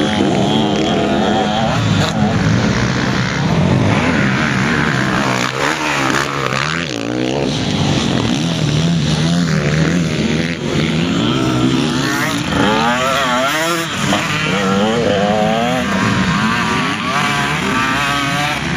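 Motocross dirt bike engines revving on the track, several at once, their pitch repeatedly climbing and dropping as the riders accelerate and shift gears.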